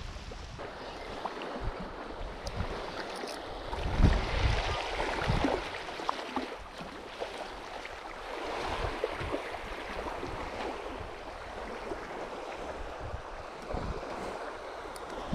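Small waves washing on a sandy shore, with wind rushing over the microphone and a few low thumps, the loudest about four seconds in.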